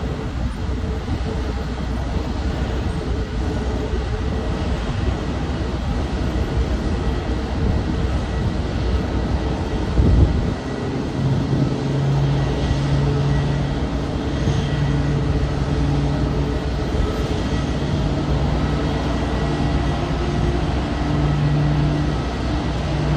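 Steady low rumble of a jet aircraft's engines at taxi, with a hum that comes and goes and a single loud thump about ten seconds in.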